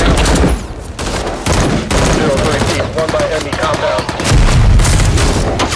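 Loud, rapid gunfire from rifles and machine guns, many shots in quick succession with no real pause.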